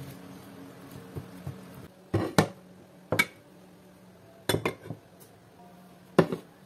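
Plates and bowls being set down on a wooden table: about half a dozen sharp clinks and knocks, starting about two seconds in.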